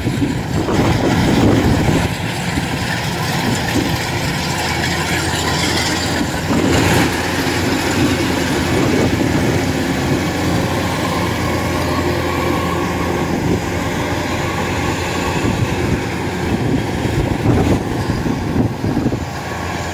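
Kubota DC-93 rice combine harvester running steadily as it cuts and threshes rice: a steady engine drone with the noise of its machinery. It is a little louder for the first two seconds, then even.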